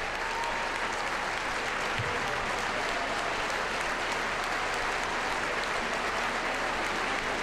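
Arena crowd applauding steadily, a dense mass of hand claps.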